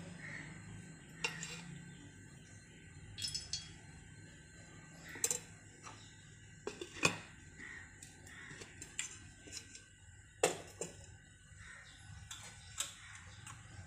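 Faint kitchen sounds as cooking oil heats in a nonstick frying pan on a cooktop: a steady low hum and several sharp clicks and clinks scattered through.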